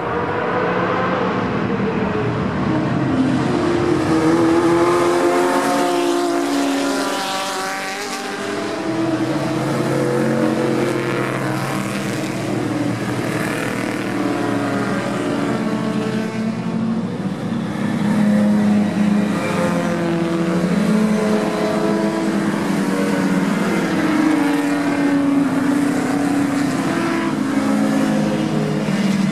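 A pack of classic sports racing cars passing at speed one after another, their engines revving up and dropping away in turn so that several engine notes overlap throughout.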